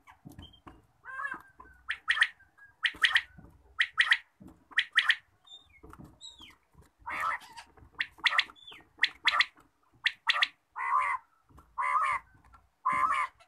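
Quail calling: a run of short, harsh calls, roughly one a second.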